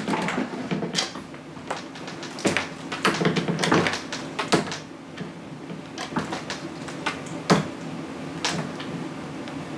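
Irregular clicks, knocks and rustles of objects being handled and moved about, busiest in the first five seconds, with a sharp knock about seven and a half seconds in, over a steady low room hum.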